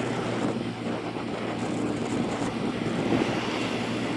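Wind rushing over the microphone of a camera riding on a moving motorbike, with the motorbike's engine and tyres running steadily underneath.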